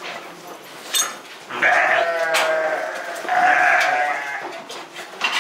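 Sheep bleating: two long, wavering bleats one after the other, the second shorter. A sharp click comes just before them.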